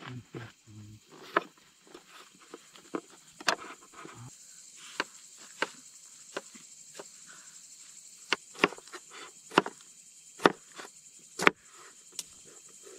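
Kitchen knife chopping onion and tomato on a wooden cutting board, in sharp irregular chops about once a second. A steady high insect chirring runs behind.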